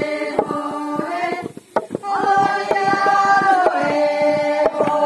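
A group of women singing a pounding chant in long held notes, two phrases with a short break about a second and a half in, over the irregular knocks of long bamboo pestles striking into a stone mortar.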